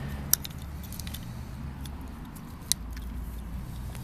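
A low steady hum with a few light clicks and ticks of small metal parts being handled, the sharpest about a third of a second in and again near three-quarters of the way through.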